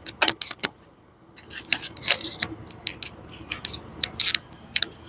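Handling noise as a phone and its microphone are moved and set in place: a string of short clicks, taps and scrapes, irregular and close up, with a quieter moment about a second in.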